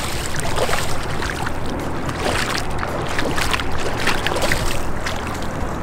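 Water splashing and sloshing in shallow water as a bass thrashes free and swims off, with scattered small splashes over a low steady rumble.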